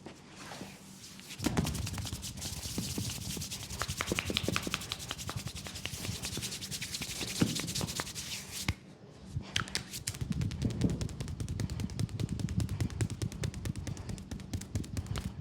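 Very fast massage strokes on a leg: hands rubbing and slapping the skin in a rapid, even rhythm. The strokes come in two long runs with a brief pause between them.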